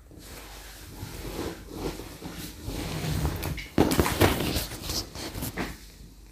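Sewing machine stitching cotton fabric, run in uneven stretches while the cloth is fed and shifted under the needle, loudest about four seconds in.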